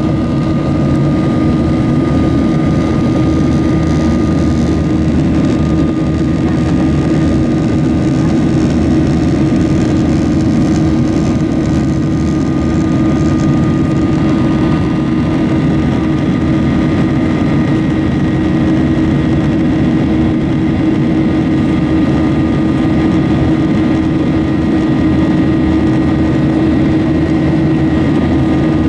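Cabin noise of a Boeing 737 in its climb after takeoff, its jet engines running at climb power: an even, steady low rumble with a constant hum and a faint high whine.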